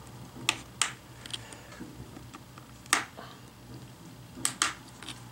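Sharp plastic clicks as a hobby knife pries along the seam of an HP Chromebook 11 G5's screen assembly, the bezel's snap-fit clips giving way. About five separate clicks, spread over a few seconds.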